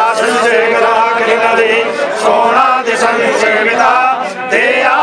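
Several male voices chanting Hindu mantras together, overlapping without pause.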